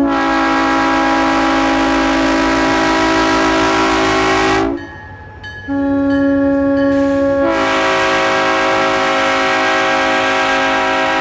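Multi-chime locomotive air horn sounding a held chord for about four and a half seconds, cutting off, then blowing again after about a second. In the second blast the chimes come in unevenly, with more notes joining about two seconds after it starts.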